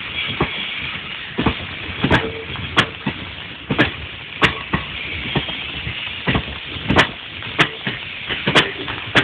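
Passenger train coaches rolling slowly past, their wheels clacking over rail joints in uneven pairs of sharp knocks, over a steady rumble and hiss.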